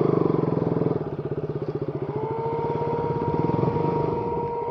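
KTM RC 200's single-cylinder engine idling with an even firing rhythm; a steady whine joins about two seconds in.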